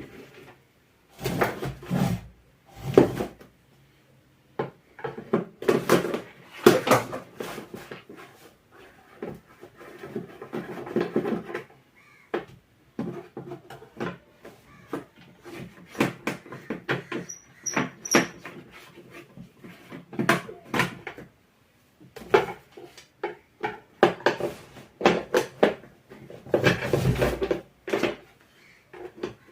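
Screwdriver work on a mixer grinder's plastic base: irregular clicks, scrapes and knocks as its six screws are undone and the parts handled, with a few brief high squeaks partway through.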